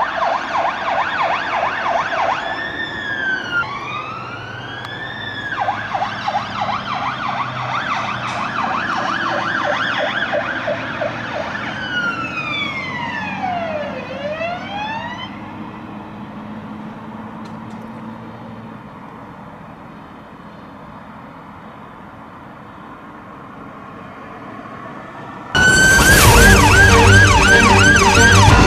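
Fire engine's electronic siren alternating between a fast yelp and a slower wail, with a low engine rumble beneath, fading away as the appliance drives off. Near the end it cuts suddenly to a louder, closer siren on a fast yelp.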